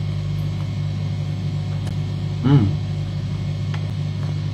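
A steady low hum runs throughout. About two and a half seconds in, a man chewing a mouthful gives one short hummed "mmm" that bends up and down in pitch.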